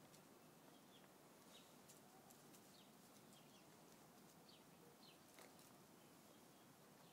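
Near silence: faint outdoor ambience with about half a dozen short, high, downward-sliding bird chirps scattered through it.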